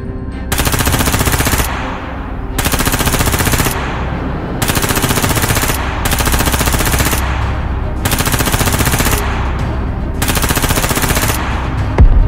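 Automatic-gunfire sound effects: six bursts of rapid fire, each about a second long with short pauses between them.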